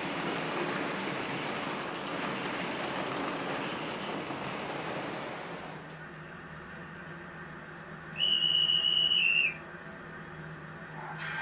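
HO-scale model train running past on the layout's track with a steady rumbling clatter that fades out about six seconds in, leaving a faint low hum. A little later comes one loud, high, steady whistle blast lasting about a second and a half, from a model-railway sound decoder.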